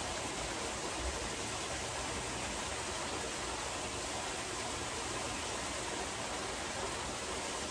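Steady rushing and splashing of water from a rock waterfall pouring into a swimming pool.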